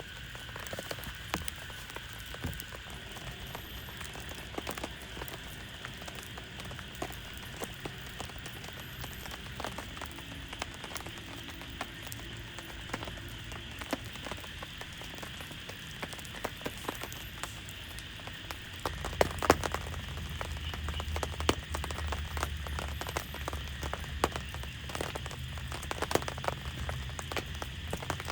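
Heavy rain falling, with many individual drops striking close by as sharp ticks. About 19 seconds in, the rain grows heavier and louder, with a low rumble underneath.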